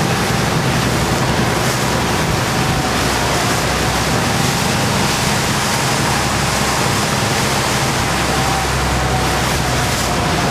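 Boat engine running steadily under way, with water rushing and splashing along the hull.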